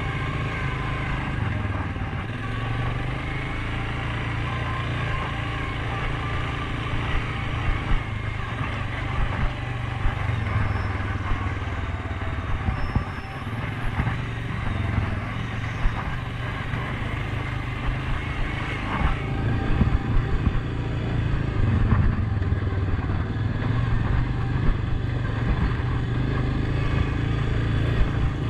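Suzuki KingQuad 750 ATV's single-cylinder engine running steadily while riding a trail, with scattered knocks and clatter throughout.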